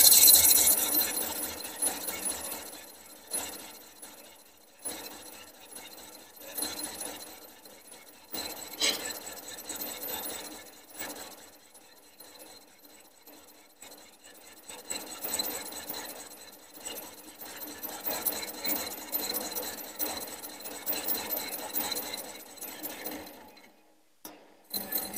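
Combination lathe-mill turning the outside of a spinning metal ring, the cutting tool scraping off chips over the running machine's steady whine. The cutting noise rises and falls in loudness, loudest at the start, and stops just before the end.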